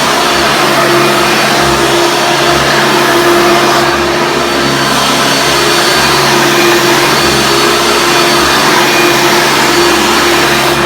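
Hoover Preferred Elite U5095-930 upright vacuum's 7.2-amp direct-air motor running steadily at full power, a loud, even rush of air over a steady hum.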